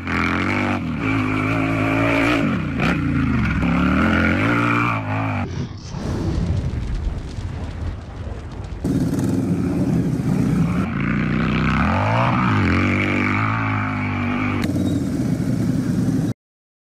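Motorcycle engine sound effect revving, its pitch rising and falling repeatedly. It cuts off suddenly near the end.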